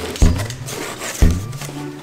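Background music with a steady bass line and two heavy beats a second apart.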